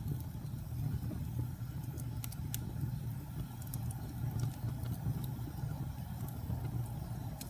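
Wood fire burning in a fireplace: a steady low rumble of flames with sharp crackles and pops scattered through it, about one every second.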